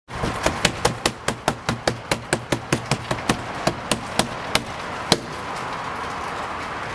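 Fist knocking rapidly and without pause on a room door, about five knocks a second for some four and a half seconds, then a single last knock about five seconds in.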